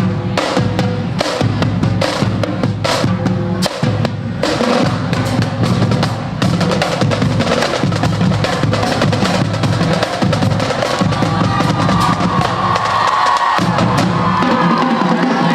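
Loud drum-driven music, with bass drum and snare hits coming thick and fast in the first few seconds and then settling into a steadier sound.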